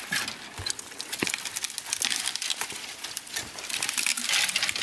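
Footsteps pushing through dry brush: dead twigs and branches snapping and crackling underfoot and against the legs, a run of sharp snaps that grows thicker near the end.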